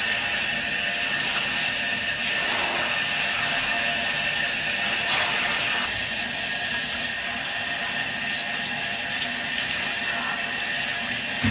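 Water running steadily in a small bathroom during a dog's bath, an even, continuous rush of water.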